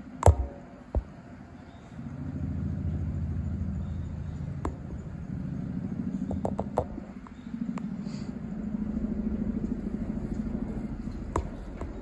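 Low engine hum of a motor vehicle, coming and going, with a few sharp clicks. The loudest click comes just after the start.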